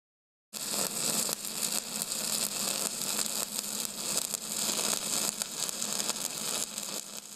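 Steady crackling hiss over a faint low hum, starting about half a second in and fading toward the end.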